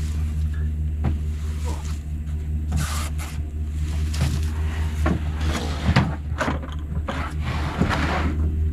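A pickup truck's engine idling steadily, with scraping, rustling and several knocks as a heavy wild hog carcass is dragged and heaved up onto the truck bed.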